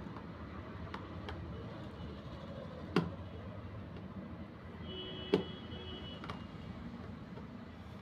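Small screwdriver turning the screw of a plastic toy remote's battery cover: a few faint, sharp plastic clicks, the clearest about three and five seconds in, over low steady background noise.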